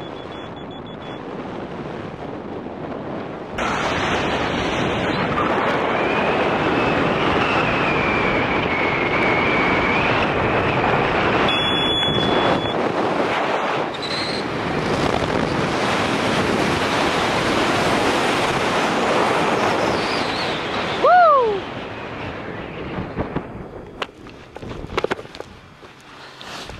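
Air rushing over the microphone of a skydiver's camera as a ram-air parachute swoops in to land. It builds sharply a few seconds in, holds loud through the dive, and dies away near the end after touchdown, with a short falling whoop just before it drops off.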